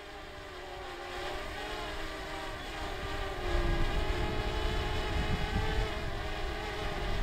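DJI Mavic quadcopter drone hovering about 10 metres overhead, its propellers giving a steady hum of several stacked pitches. A low rumble underneath grows louder about three seconds in.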